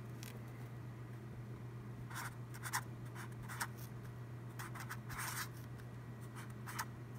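Felt-tip marker writing on a paper legal pad, a series of short separate strokes with brief pauses between them, over a steady low hum.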